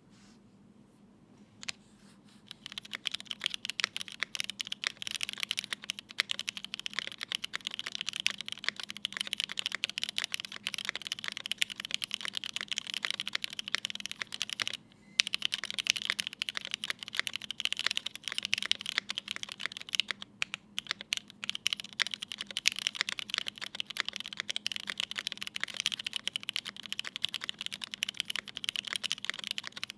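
Continuous fast typing on a Keycult No.1/65 mechanical keyboard with lubed Cherry MX Black linear switches (spring-swapped to 70 g), an aluminium plate and GMK keycaps: a dense stream of keystroke clacks. A single click comes at the start, the typing begins about two and a half seconds in, and it breaks off briefly about halfway.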